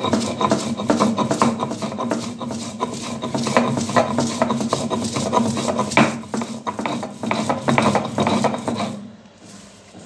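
Stone roller of a shil-nora grinding wet coriander leaves on a flat stone slab: quick, repeated back-and-forth rasping strokes of stone on stone, stopping near the end.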